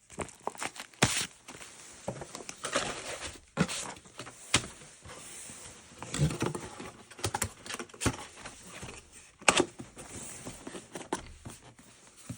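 A boxed new aluminum hiking staff and its packaging being handled: irregular rustling with scattered sharp clicks and knocks.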